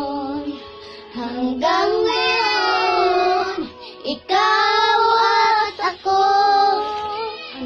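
Young girls singing a slow Filipino ballad together, unaccompanied, in lines of held notes with short pauses between them.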